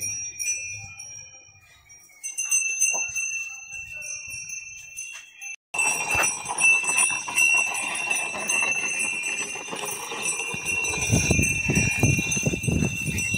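Bells on decorated bulls jingling and ringing steadily as the bulls move, breaking off for a moment about five and a half seconds in and coming back louder. Low thumps join near the end.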